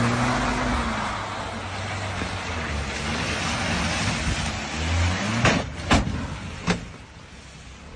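Car engine revving hard as the sedan slides sideways on a wet lot, over a steady hiss from the wet road. From about five and a half seconds in, three sharp bangs as the car strikes a low wall.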